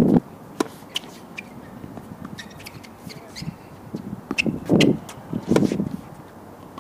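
Tennis rally on an outdoor hard court: a series of sharp pops from racket strings striking the ball and the ball bouncing, some near and some from the far end of the court, with gusts of wind on the microphone.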